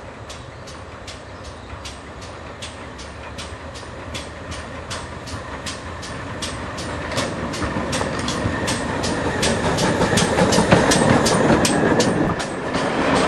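Steam locomotive 9466, a GWR 94xx pannier tank, working hard with a passenger train, its exhaust beats coming evenly about two to three a second. The sound grows steadily louder as the engine approaches and passes close by, and near the end the coaches rumble past.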